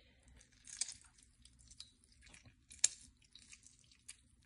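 Half a lemon being juiced into a sauce: faint wet squishing and dripping, with a sharp click a little under three seconds in.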